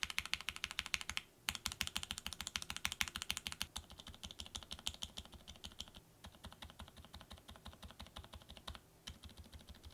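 Fast typing on a mechanical keyboard with an aluminium plate and ABS keycaps, in short runs switching from one set of switches to the next. Lubed Kailh BOX Cream linear switches give sharp, bright key clicks at first. From about four seconds in, the lubed BOX Silent Pink and the BOX Silent Pink Cream hybrid switches give a duller, softer, dampened typing sound.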